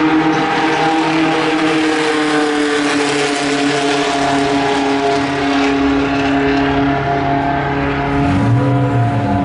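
Open-wheel formula race car's engine running at speed on the circuit, a steady engine note that slowly drops in pitch, with the sound shifting near the end.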